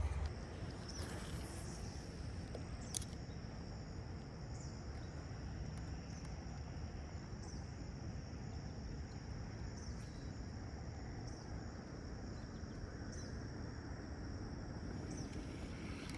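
Insects chirring steadily at a high pitch over a low outdoor rumble, with one sharp click about three seconds in.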